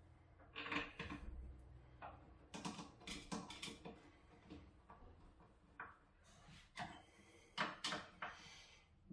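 Irregular light clicks and knocks from small parts and tools being handled and fitted while a rack is assembled, with the sharpest knocks a little under a second in and again near the end.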